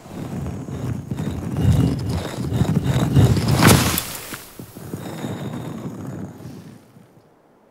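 Stone grinding and clattering as a staircase slides out of a giant stone pharaoh statue's mouth. A heavy rumble with rattling knocks, a sharp crack a little before four seconds in, then a lighter scraping that dies away near the end.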